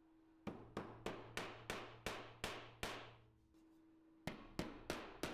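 Claw hammer tapping brass screw inserts into drilled recesses in an oak board: a run of sharp strikes about three a second, a pause, then a second run near the end.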